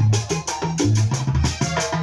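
Live vallenato band playing an instrumental passage: button accordion over a steady bass line, with a caja hand drum beating an even rhythm.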